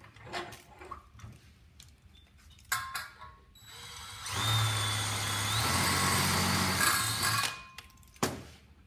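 Cordless drill with a 6 mm HSS bit running for about three seconds as it drills through steel trunking, starting about four seconds in, its motor note shifting partway through. Before that, a few light handling clicks as the drill is set in place.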